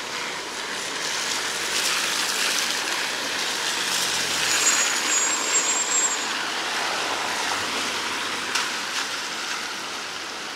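Road traffic on a wet road: the hiss of tyres swells and fades as a vehicle passes, with a brief high squeal near the middle.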